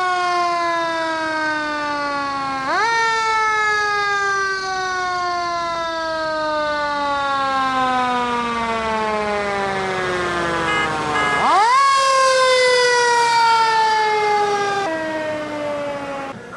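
Fire engine siren wailing: it rises sharply twice, each time followed by a long, slow fall in pitch.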